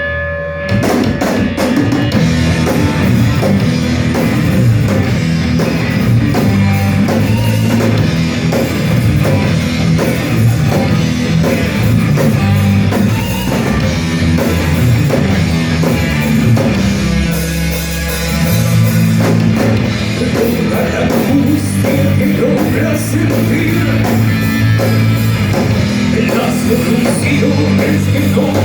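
A thrash metal band playing live: distorted electric guitars, bass and drum kit, loud and dense. There is a brief drop-out in the riffing about eighteen seconds in before the full band comes back in.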